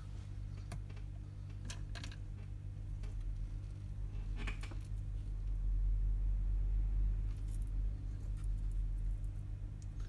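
Steady low electrical mains hum that swells in the middle, with a few faint clicks and small taps of a soldering iron and fingers handling a phone logic board.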